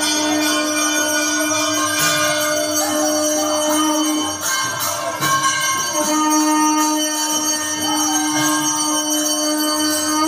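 Conch shell (shankha) blown in two long blasts, each a steady low tone held without wavering, with a short break for breath a little before the middle. Bells ring behind it.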